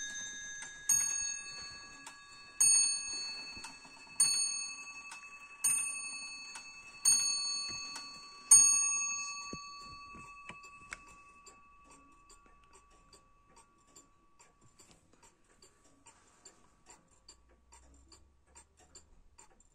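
John Wimble of Ashford musical bracket clock striking six times on its bell after its tune ends, each blow about a second and a half apart and ringing out. After the last strike, about eight seconds in, the movement ticks on steadily and faintly.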